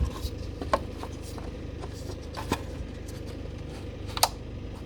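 Light plastic clicks and knocks from the oil filler cap being fitted and screwed onto a BMW N55 engine, a few sharp ticks spread out over a faint steady hum.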